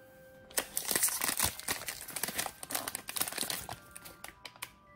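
Plastic wrapper of a small toy figure crinkling as it is unwrapped: about three seconds of dense crackling, then a few lighter crackles near the end.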